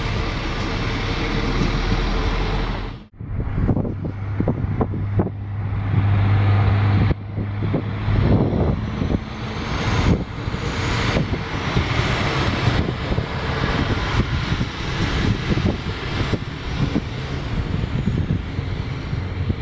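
Alstom Coradia LINT 41 diesel railcar pulling out, its diesel engine running with a strong low hum that eases about seven seconds in, under a steady rumble and some wind on the microphone. The sound cuts out briefly about three seconds in.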